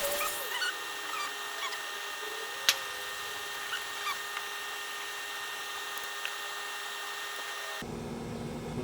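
Hands working a rope line while tying a knot: faint short squeaks of cord rubbing and one sharp click, a little under three seconds in, over a steady hum.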